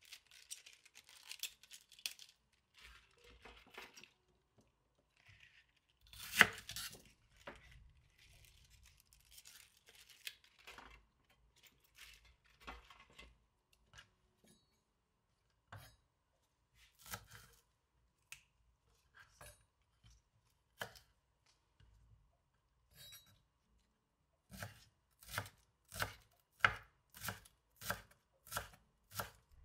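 Bok choy leaves being torn and snapped off the stem by hand, with scattered small handling sounds on a wooden cutting board and one sharp knock about six seconds in. Near the end, a knife slices green onions on the board in steady strokes, about one and a half a second.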